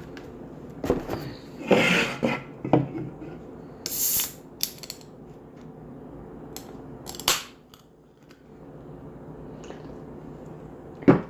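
Someone taking a drink: scattered clicks, knocks and scuffling from handling the drink, with a brief hiss about four seconds in and a sharp click near the end.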